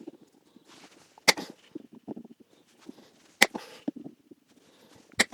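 Three sharp snaps about two seconds apart as nails in a shoe are cut through, each followed by a brief scrape, with light knocks and handling of the shoe in between.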